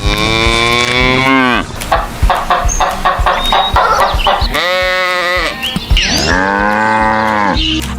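Farm animal calling: three long, drawn-out cries, each held and then falling in pitch at the end, with a quick run of clicking sounds between the first two.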